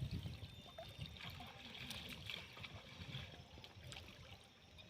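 Faint water trickling and lapping, as around a small fishing boat or net in the water, with a few small knocks.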